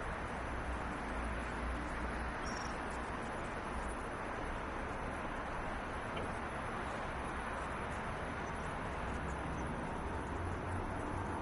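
Steady city ambience: an even low rumble and hiss of distant traffic, with a faint short high chirp about two and a half seconds in.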